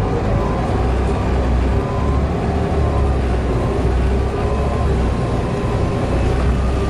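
Volvo B7TL bus's diesel engine running, a steady low rumble with a faint whine on top.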